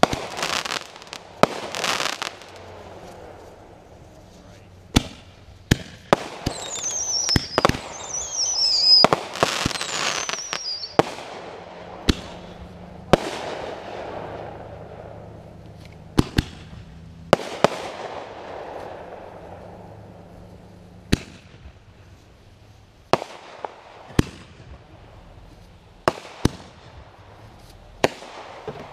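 Aerial fireworks shells bursting, a sharp bang every second or two with echoing tails. A few seconds in comes a run of whistles that fall in pitch, then the bangs go on.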